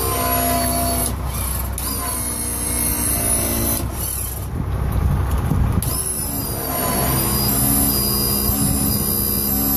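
A diesel-pusher motorhome's leveling jacks being lowered: a steady mechanical hum, with a louder rushing noise for about a second and a half midway through.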